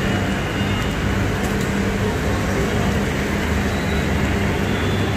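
A motor-vehicle engine running steadily, a constant drone with a low hum.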